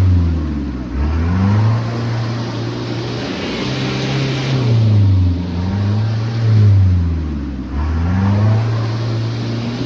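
Four-wheel-drive's engine revving up and down over and over, its pitch dropping and climbing again several times, as if working through a rough trail.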